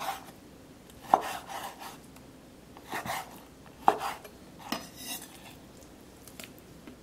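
Chef's knife cutting a tilapia fillet into pieces on a wooden cutting board: a few sharp knocks of the blade against the board, spaced a second or so apart, each followed by a short scraping sound.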